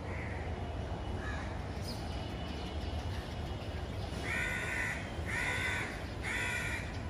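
A crow cawing: three harsh caws about a second apart in the second half, with a couple of fainter calls earlier, over a steady low background rumble.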